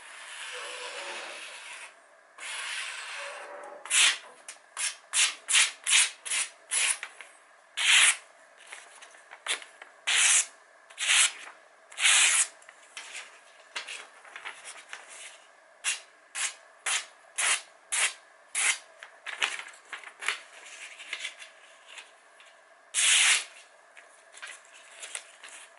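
A freshly sharpened Zwilling kitchen knife slices through a glossy catalogue page in a paper-cutting test of its edge: a long run of short, crisp swishes, up to about two a second, with a few longer, louder cuts. The first couple of seconds hold a softer, longer rustle of the paper.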